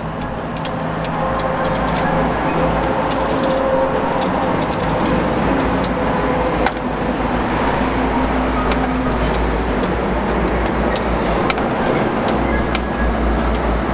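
A vehicle engine running: a steady rumble with a deep drone that gets stronger near the end, and scattered light clicks.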